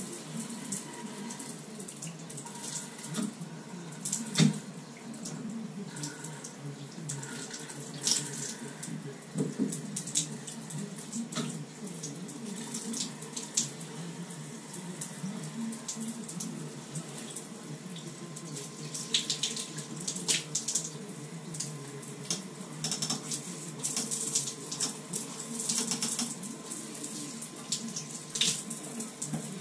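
A shower head running, its water spraying steadily onto the tile and shower floor, with a few sharp knocks, the loudest about four and a half seconds in. The flow is weak, which the plumber puts down to pipe dope clogging the head.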